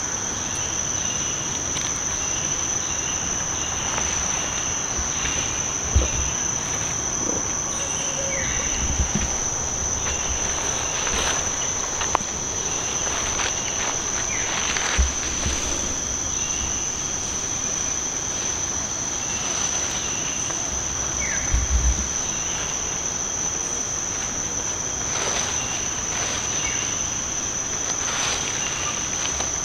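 Forest insects droning in one unbroken high-pitched tone, with a few brief low thumps and faint rustling clicks here and there.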